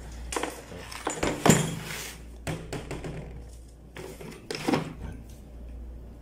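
Metal tools of a copper-tube flaring kit clinking and knocking as they are handled in their plastic case: a string of sharp knocks, the loudest about a second and a half in.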